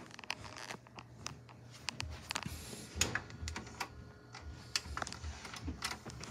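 Handling noise: irregular clicks and rustles of a phone being carried and moved around, with a press of a VCR front-panel button among them. The loudest click comes about three seconds in.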